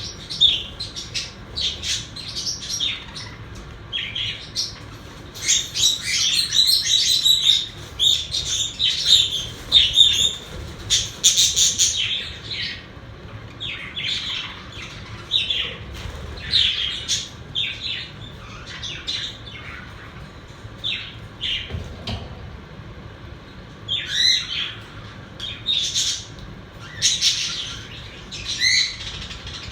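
Several pet budgerigars chirping, warbling and giving short squawks, with denser bursts of chatter about a third of the way in and again near the end.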